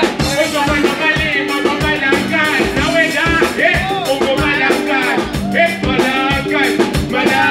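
A live band playing: a singer's voice over electric guitar and a drum kit keeping a steady beat.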